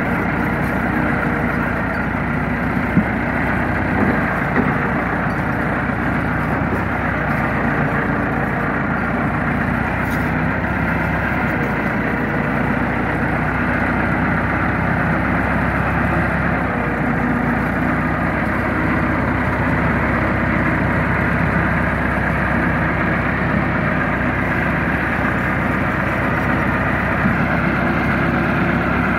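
Massey Ferguson 385 tractor's four-cylinder diesel engine running steadily as it drives across a field, heard close up from the driver's seat. A few brief knocks sound about three to five seconds in.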